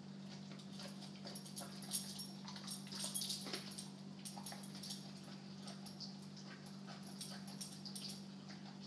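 An American bulldog making faint mouth and throat noises, with scattered soft clicks that come thickest a couple of seconds in. A steady low electrical hum runs underneath.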